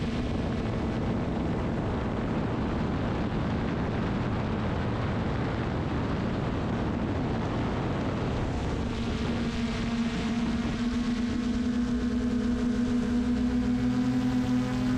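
Quadcopter drone's motors and propellers humming with a steady pitched whine and its overtones over a rushing noise. The whine sinks under the noise for the first half, then comes back stronger about nine seconds in.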